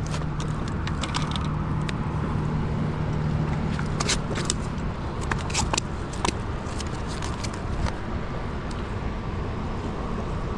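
Steady rush of water pouring through a dam's spillway gates, with scattered clicks and scrapes from handling a freshly caught fish and tackle on rock. A low hum under the rush fades out about four seconds in.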